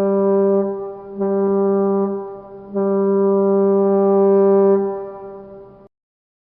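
Ship's horn sounding three blasts on one deep, steady note: two short blasts, then a longer one that fades away.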